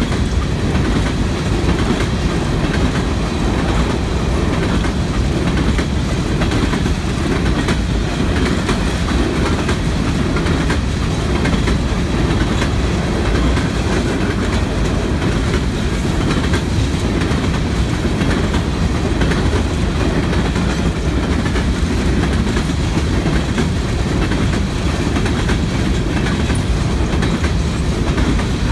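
Kansas City Southern freight train rolling past: a steady, heavy rumble of the cars, with the clickety-clack of wheels over rail joints.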